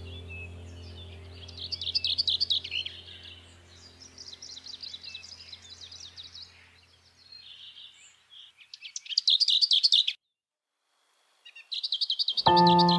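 Small birds chirping in rapid high trilled bursts, several times, over a low held music drone that fades away. After a short gap of silence the chirping returns, and music with steady held tones comes in near the end.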